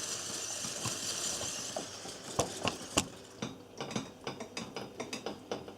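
A bowl set over a pan of boiling water, hissing steadily for the first couple of seconds, then clinking and rattling against the pan in a run of irregular sharp clicks as the water boils beneath it.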